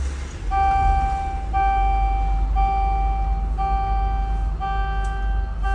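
The Scania K310iB bus's diesel engine, a 9-litre five-cylinder, idles with a steady low rumble just after being started. Over it a dashboard warning buzzer beeps about once a second, each beep nearly a second long.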